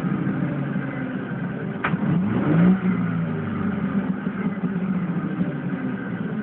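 1999 Ford Mustang's 3.8-litre V6 running in neutral, revved once briefly about two to three seconds in, with a sharp click just before the rev. In neutral the engine runs without the knock the owner reports only in gear.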